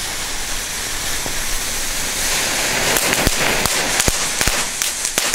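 Three small youth-category firecrackers ('Crackers') with their fuses hissing and spraying sparks, then going off in a run of sharp pops starting about three seconds in.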